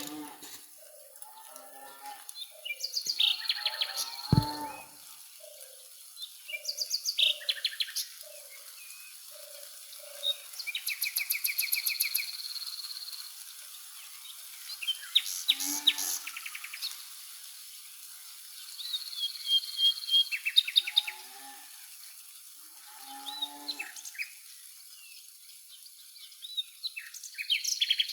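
Songbirds singing in repeated bursts of rapid chirps and trills, a phrase about every four seconds, over a steady high-pitched hiss. A low soft note repeats about twice a second through the first several seconds.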